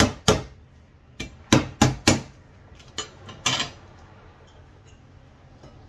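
Cleaver chopping lemongrass stalks on a thick wooden chopping board: about eight sharp chops in irregular groups over the first three and a half seconds, then the chopping stops.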